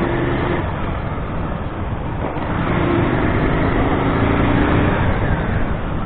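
Motorcycle engine running as the bike is ridden along a street, mixed with steady wind and road noise on the rider's on-board camera microphone.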